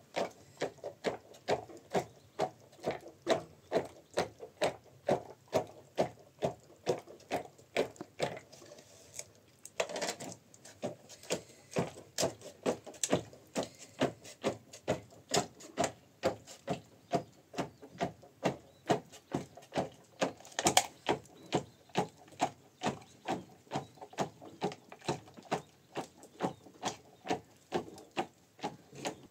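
Steady rhythmic knocking, about three blows a second. It breaks off briefly near the ten-second mark, and one blow about two-thirds of the way in is louder than the rest.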